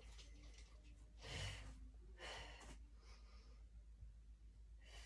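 A woman breathing with effort during a core exercise: three audible breaths about a second apart, the first the strongest and the last faint, over a low steady hum.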